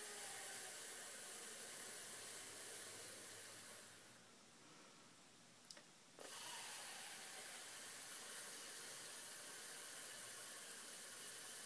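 A woman exhales a long, breathy 'th' hiss through her teeth with her tongue held behind them: the theta breath, which sounds like a snake with a lisp. The hiss fades about four seconds in while she breathes in through her nose, then a second long hiss follows just after a short click.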